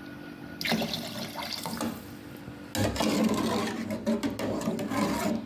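Water being poured into a cooking pot of steamed vegetables, in two pours, the second longer and louder, cutting off sharply near the end.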